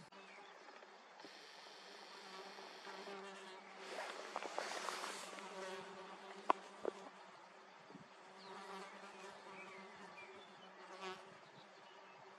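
Insects buzzing: a steady low drone that swells louder midway, with a few faint sharp clicks.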